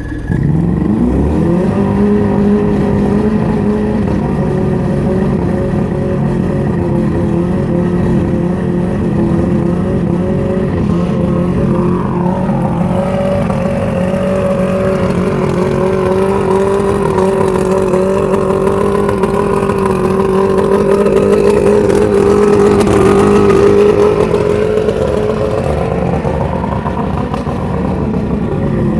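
Bass boat outboard motor running after a cold start. It revs up sharply at the beginning, then holds a steady fast idle that rises briefly about three-quarters of the way through before settling.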